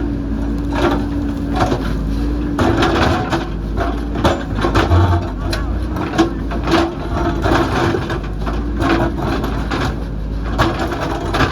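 Backhoe loader's diesel engine running steadily under load, with repeated irregular crunches and knocks of the bucket breaking into rock and soil.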